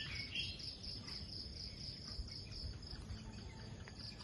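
Insects calling in tropical forest trees: a steady, high pulsing trill at about four pulses a second, over a low rumble.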